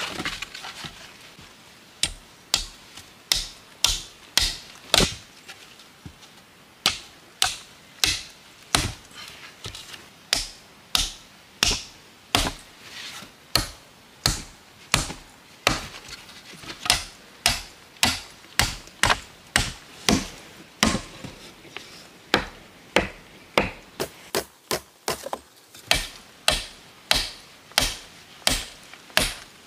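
A hand tool striking wood again and again: runs of sharp blows, often about two a second, with a short pause about a fifth of the way in.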